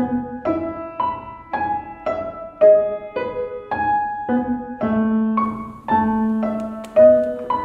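Background music: a gentle piano melody of single notes struck about twice a second, each fading before the next.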